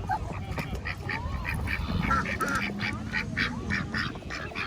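Ducks quacking in a quick run of short quacks, about four a second.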